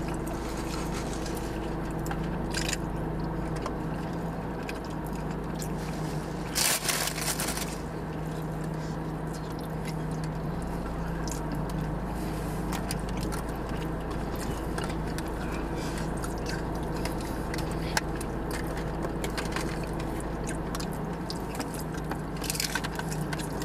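Eating in a car: chewing, scraping and crinkling of food wrappers, with a loud rustle about seven seconds in and a crunchy bite into a taco near the end, over the steady low hum of the car's idling engine.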